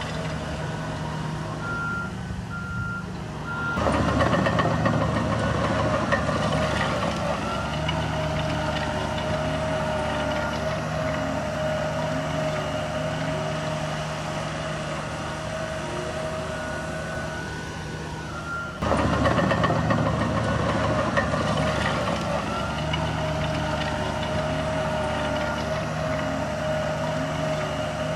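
Diesel engines of earthmoving machines, a bulldozer and dump truck, running under load, with a reversing alarm beeping. The machinery gets abruptly louder about four seconds in and again about nineteen seconds in.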